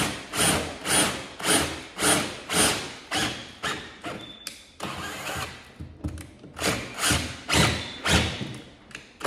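DeWalt cordless drill driving a 20mm Bosch spade bit through the wall in repeated short surges, about two a second, easing off briefly partway through and then going in slower, longer pushes. The bit is boring into a timber batten behind the wall.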